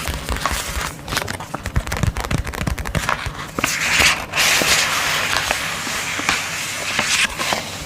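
Sleep mask packaging handled close to the microphone: dense crackling, taps and low thumps, then a stretch of rustling from about halfway through.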